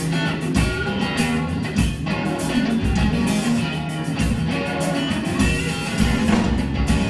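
Live blues-rock trio playing an instrumental passage: electric guitar leading over bass guitar and drums.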